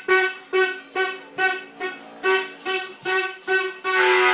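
Music: a repeated pitched note, about two a second, with a lower held tone beneath, ending on a long held note.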